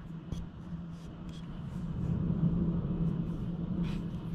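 Low rumble of distant thunder, swelling about two seconds in, with a few light ticks scattered through it.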